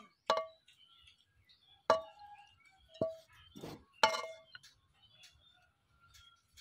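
A metal wok clinking against a ceramic plate as a stir-fry is tipped and scraped out: four sharp clinks with a short ring, about a second apart, and a softer scrape between the last two.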